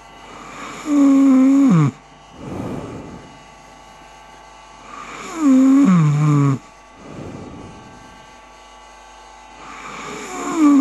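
A person snoring in a moaning voice. Three times, about four and a half seconds apart, a loud moan-like vocal sound falls in pitch over about a second, with quieter breathy snores between.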